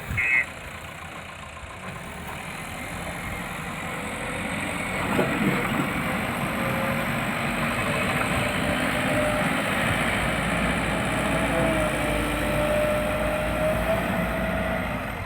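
A JCB backhoe loader's diesel engine running, growing louder over the first few seconds and then holding steady. A faint whine comes in over the second half.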